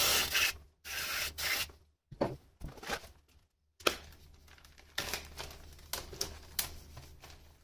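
Two short hisses of an aerosol cleaner spray can cleaning a diesel injector nut, then a small plastic bag rustling and crinkling as it is handled, with scattered clicks.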